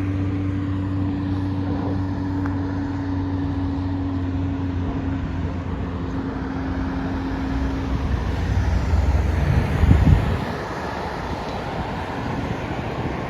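Road traffic: a vehicle's engine hums steadily at first, then a vehicle passes close by, loudest about ten seconds in, before the traffic noise settles back down.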